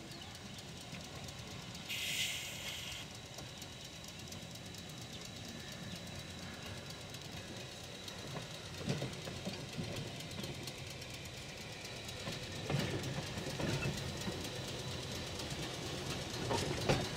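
San Francisco Municipal Railway streetcar 178 rolling slowly along its track, its wheels clicking and knocking over rail joints, the knocks coming more often and louder as it draws close. A brief hiss about two seconds in.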